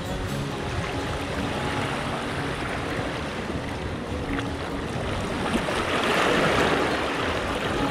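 Sea waves washing against a rock breakwater, with wind on the microphone; one wash swells up about six seconds in.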